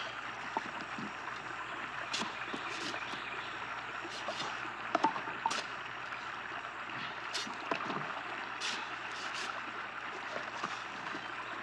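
Steady rush of flowing creek water, with scattered short splashes and knocks.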